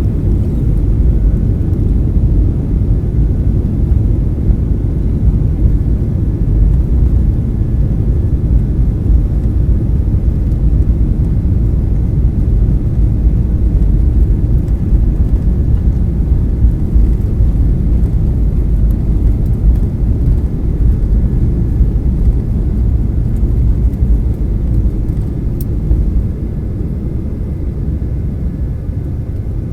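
Jet airliner heard from inside the cabin during takeoff: a loud, steady low rumble from the engines and airframe, easing a little near the end.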